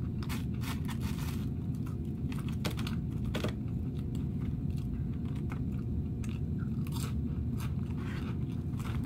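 Close-up chewing and crunching of a crispy breaded fish sandwich, with irregular crunches and mouth clicks, over a steady low rumble.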